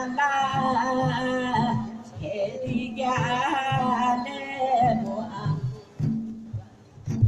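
Music: a voice singing a wavering melody over a steady low beat, dropping away briefly near the end.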